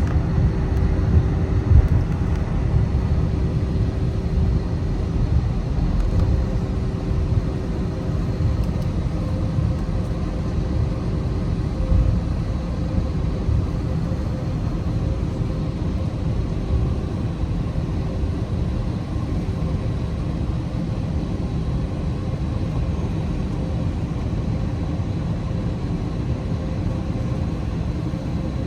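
Jet airliner cabin noise: a steady low rumble of engines and airflow, with a faint constant hum tone above it.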